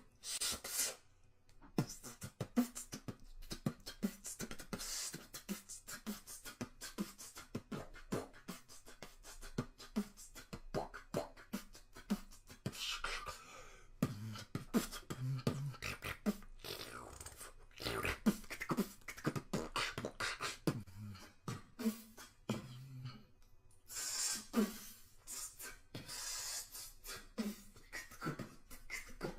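A person beatboxing: a fast, rhythmic run of mouth-made kick, snare and hi-hat sounds, fairly faint.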